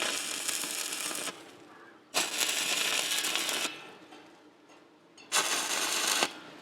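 Electric arc welding crackling in three short bursts of about a second each, with pauses between: short welds fixing flat bar onto the tops of galvanised-iron tube steps.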